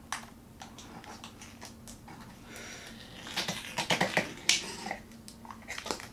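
Small clicks and scratchy scraping from a knife and fingers working behind an opened iMac's display panel, against its aluminium housing and cable connectors. The scraping is densest from about three to four and a half seconds in.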